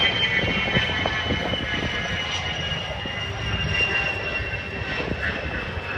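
Aircraft engine running as a plane flies past, with a high whine that slowly drops in pitch over a steady rumble.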